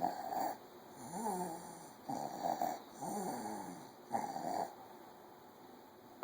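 Wheezing breaths, about five of them, each a noisy rasp, several carrying a whistling pitch that slides downward.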